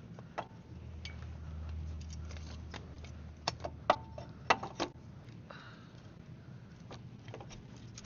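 Sharp metallic clicks and knocks from unhooking a disc harrow from a tractor, a quick cluster of them about halfway through, over a low steady hum.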